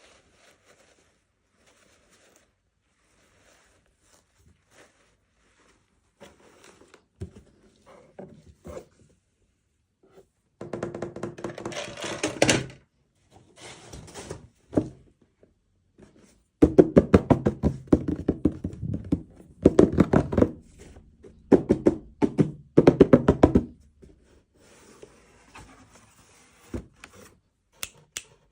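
Packaging being handled during a toy unboxing. Faint fumbling gives way to two stretches of rapid tapping and knocking, a short one about a third of the way in and a longer one past the middle, then light rustling.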